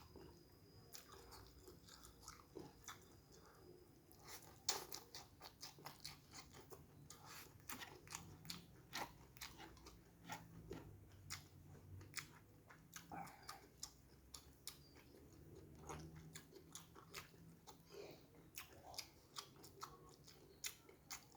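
Faint, close chewing of free-range chicken: irregular wet mouth clicks and small crunches as the meat is bitten and chewed.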